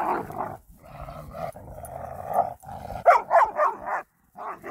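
Dogs play-fighting: a long stretch of growling, then a quick run of barks about three seconds in and one more near the end.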